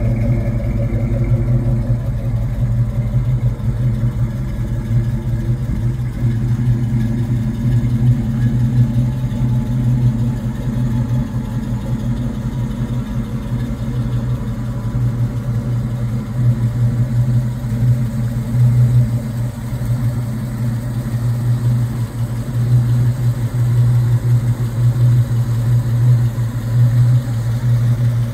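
1967 Ford Mustang GT's 390 cubic-inch S-code big-block V8 running at a steady idle through its dual exhaust, a low, even engine note.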